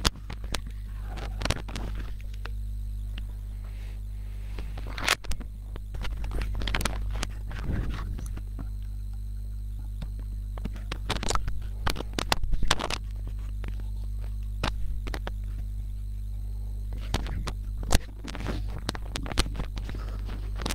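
A steady low electrical hum with irregular clicks and knocks scattered through it.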